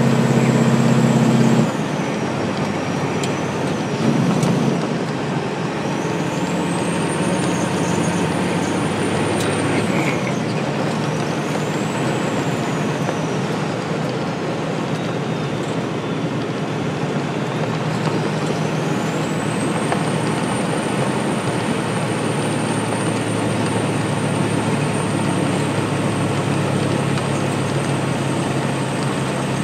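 Semi truck driving, heard from inside the cab: steady engine and road noise, with the engine note dropping about two seconds in. A high whine rises and falls several times over it.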